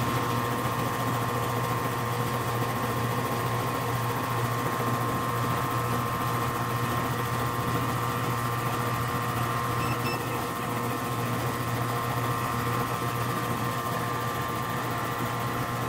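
Outdoor central air-conditioner condensing unit running, its compressor and condenser fan making a steady, even hum. The unit is running normally, with both compressor and fan drawing current within their rated range.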